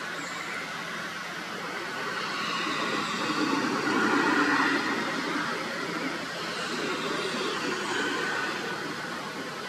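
A motor vehicle passing nearby: a rushing noise that swells to a peak about four seconds in and then fades. Faint bird chirps come near the end.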